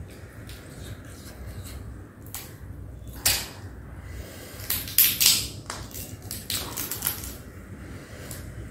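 Cooked crab shell being cracked and pulled apart by hand: one sharp crack a little after three seconds, then a cluster of louder cracks and crunches around five seconds and a few more about a second later, over a low steady hum.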